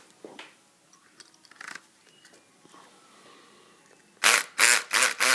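Faint small clicks, then about a second before the end a homemade electric pick gun, a converted Black & Decker electric screwdriver motor, buzzes in short rapid bursts, about three or four a second, as it is pulsed against a padlock's pins.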